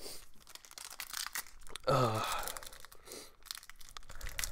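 Wrapper of a hockey card pack being torn open and crinkled by hand, a crackly run of tearing and rustling, with a brief vocal sound about two seconds in.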